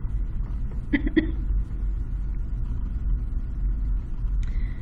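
Steady low rumble of background noise with a pen writing on paper. About a second in there are two short faint sounds, and another brief one near the end.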